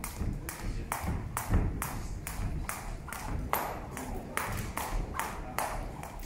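Jump rope slapping the gym floor in a steady rhythm, about twice a second, each stroke a sharp slap with a low thud under it.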